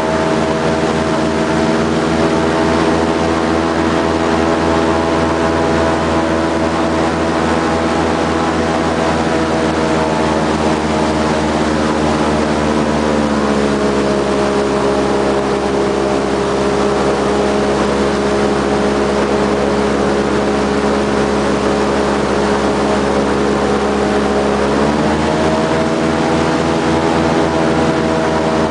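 Airboat engine and air propeller running steadily. The pitch drops as the engine slows about halfway through, then rises again a few seconds before the end.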